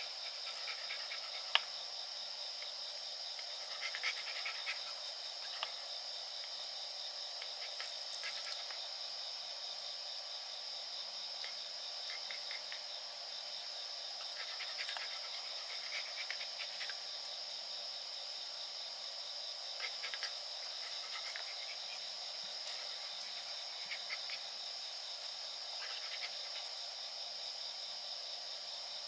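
Insects, crickets among them, trilling steadily in several overlapping high-pitched layers, one of them a fast pulsing chirp. A sharp click sounds about a second and a half in, with a few fainter light ticks scattered after it.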